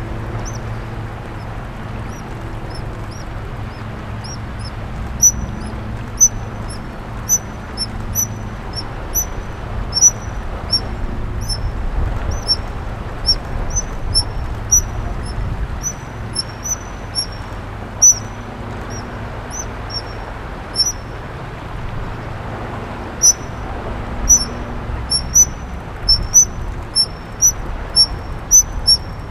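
Young otters squeaking: many short, high-pitched squeaks, scattered at first and coming thick and fast near the end, over the steady low rush of the flooded river.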